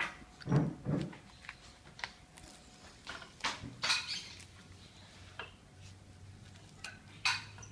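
Puppies chewing and tugging at a dry palm frond: irregular crackling and rustling of the dry leaf, with two low thumps about half a second in.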